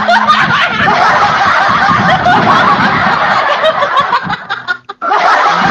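Several people laughing hard together, the laughs overlapping. The laughter breaks off suddenly about five seconds in, then starts again.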